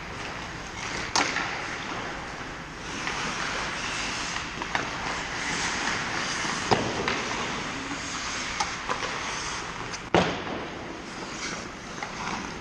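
Ice hockey skates scraping and carving on rink ice, with sticks and puck knocking; three sharp knocks stand out, the last and loudest near the end.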